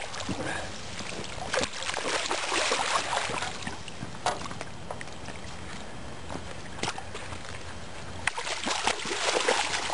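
Water splashing and sloshing in two spells, about two seconds in and again near the end, with a few sharp knocks in between, as two freshly landed carp are handled in a landing net at the boat's side.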